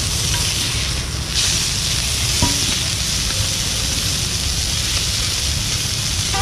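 Marinated fish and prawns sizzling on a large flat black griddle: a steady, loud frying hiss with a low rumble underneath, dipping briefly about a second in.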